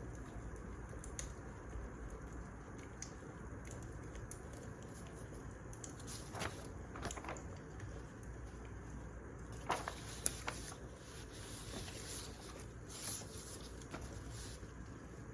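Wood fire crackling: a steady soft hiss with scattered small crackles and a few louder sharp pops.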